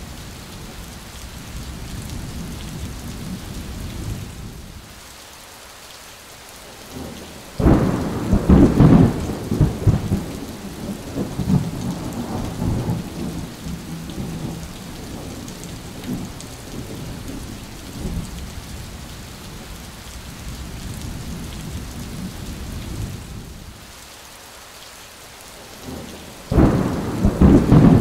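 Heavy rain falling steadily, with a loud thunderclap breaking in about a quarter of the way through and rumbling off over a few seconds, and a second one starting near the end.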